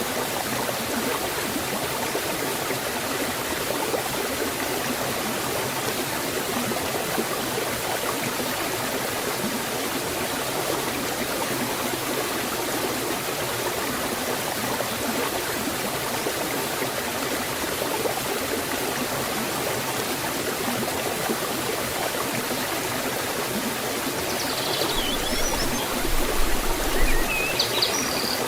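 Water of a forest stream and waterfall rushing steadily. A bird chirps a few times near the end.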